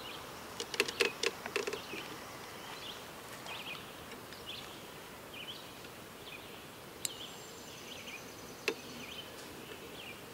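Thread being started and wound onto a hook held in a fly-tying vise: a quick run of small clicks about a second in, then a few single sharp ticks, over a faint steady hiss. Soft high chirps recur every half second to a second.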